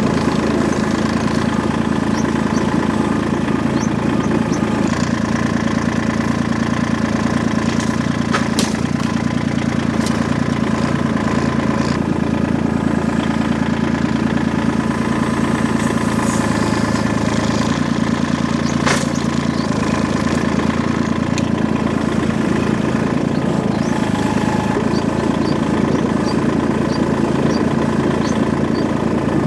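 An engine running steadily at a constant speed, with a few sharp knocks over it, about eight, ten and nineteen seconds in.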